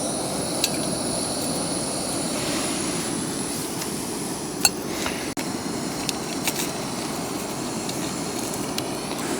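Portable gas camping stove burner running with a steady roaring hiss under a pot of water, with a few light metallic clinks from the pot.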